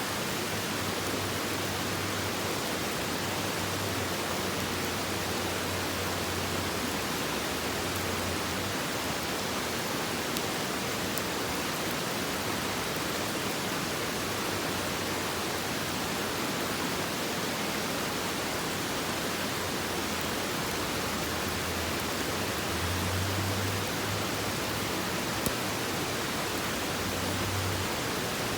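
Strong creek running fast, a steady full rush of water with no let-up.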